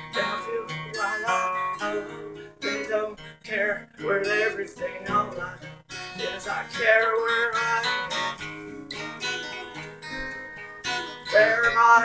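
Two acoustic guitars strummed and picked together while a man sings.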